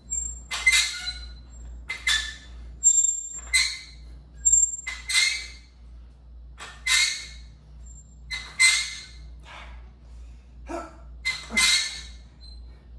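A man's hard, forceful breaths, one with each barbell curl rep, coming about every one and a half seconds over a low steady hum.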